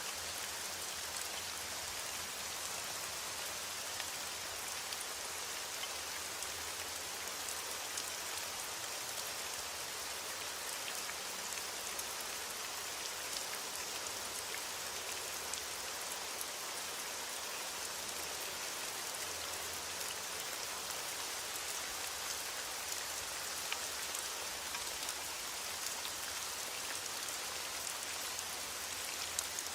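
Steady rain falling, an even hiss with many fine drop ticks on a surface.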